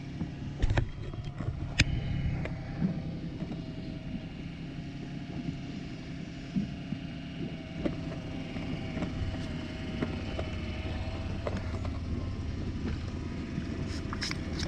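Boat engine running steadily with a low hum, with a couple of sharp clicks or knocks about one and two seconds in.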